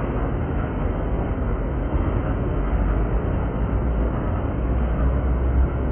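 Metra commuter train rolling across a steel truss bridge: a steady low rumble.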